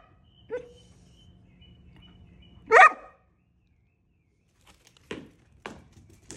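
Deutsch Drahthaar (German wirehaired pointer) puppy barking once, loudly, about three seconds in. A few soft knocks follow near the end.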